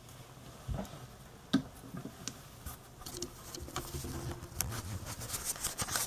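Irregular small clicks and light knocks, a few sharp ones early and coming more often toward the end, over a faint low hum.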